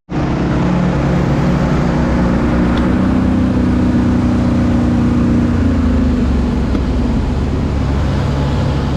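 Engine and grain-handling machinery running steadily, a drone with several steady tones; a few of the tones slide lower about five to six seconds in.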